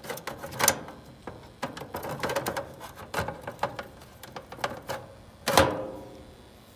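Clicks and scrapes of a dual run capacitor being worked loose by hand from its metal mounting bracket in an air-conditioner condenser unit. Near the end comes one loud metal clank that rings briefly.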